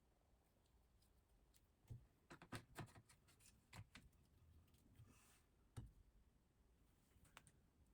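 Near silence broken by faint scattered clicks and taps, with a short soft scrape about five seconds in.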